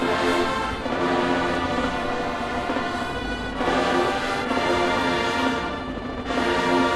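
Marching band brass section playing sustained full chords in swelling phrases, with fresh loud entries about a second, three and a half seconds and six seconds in.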